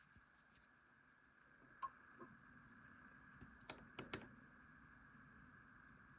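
Near silence: faint room tone with about five soft, short clicks in the middle, from the tool being handled.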